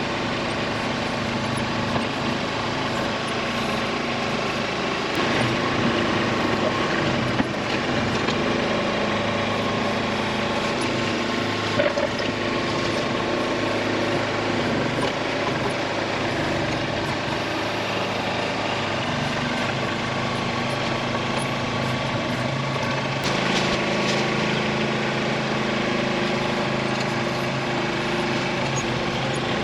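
Tractor engine running steadily as the backhoe works, with a couple of short knocks.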